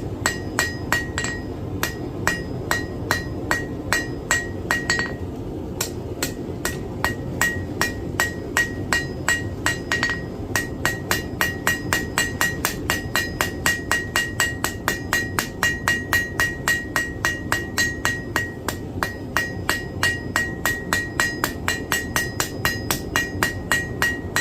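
Blacksmith's hand hammer striking hot iron stock on an anvil in a steady rhythm of about three blows a second, each blow with a bright metallic ring. The hammering breaks off briefly about five and ten seconds in, then resumes.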